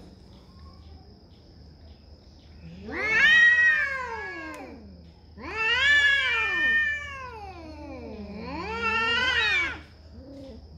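Domestic cats yowling at each other in a territorial standoff: three long, wavering yowls, each rising and then falling in pitch, the first one loudest, about three seconds in.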